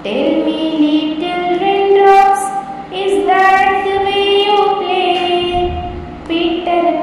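A young voice singing a children's school rhyme, with long held notes and short breaths about 3 and 6 seconds in.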